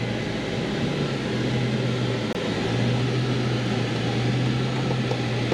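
Jeep driving slowly on a dirt trail, heard from inside the cab: a steady low engine hum under a constant wash of tyre and trail noise.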